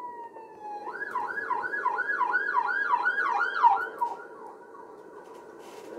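Police car siren: a falling wail that switches about a second in to a fast yelp, rising and falling about three to four times a second, then fades out about four seconds in as the car passes.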